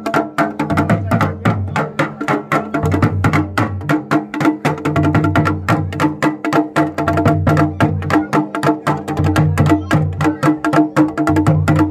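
Dhol and damau drums played together in a fast, steady stream of beats: the traditional dhol-damau drumming that accompanies a mandan, a village deity dance.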